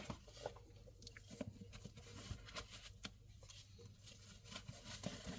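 Faint handling noise: scattered light clicks and crackly rustles of hands at work, over a low steady hum.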